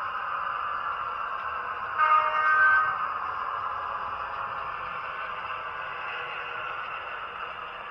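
Sound-fitted Dapol Class 52 Western model diesel locomotive sounding its horn once, a pitched blast of about a second from its onboard loudspeaker, over a steady running noise from the model.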